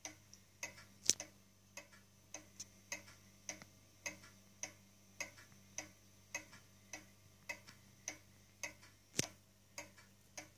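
Junghans pendulum wall clock ticking steadily, a little under two ticks a second; the century-old movement is running evenly. Two louder clicks stand out, about a second in and near the end.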